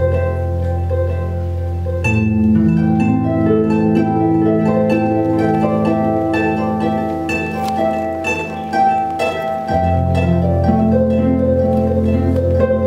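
Lyon and Healy Concert Grand pedal harp played through looping effects: many plucked notes ringing over each other above a sustained low drone. The drone drops out about two seconds in and comes back near the end.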